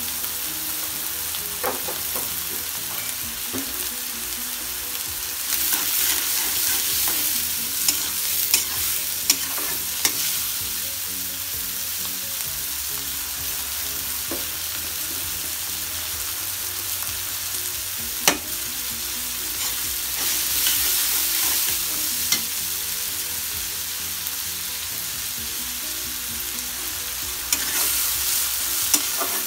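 Small shrimp, garlic and green chillies frying in hot oil in a metal wok: a steady sizzle that swells in stretches as the pan is stirred. A few sharp clicks of the metal spatula against the wok.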